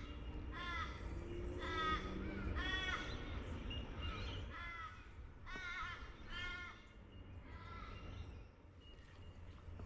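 A crow cawing over and over, a string of about eight drawn-out calls roughly a second apart, with a low wind rumble underneath.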